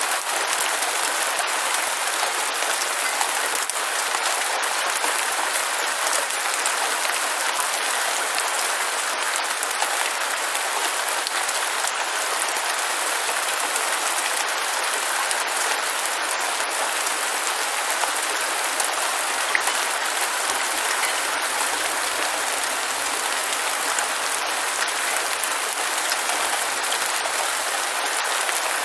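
Steady rain falling: an even hiss of countless drops that does not let up, with no low rumble or thunder.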